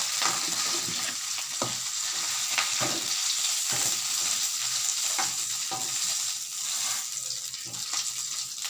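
Pieces of rendang beef sizzling as they fry in hot oil in a metal wok. The sizzle is a steady hiss, with scattered clicks and scrapes as a spatula and fork turn the meat and lift it out. The meat is fried through.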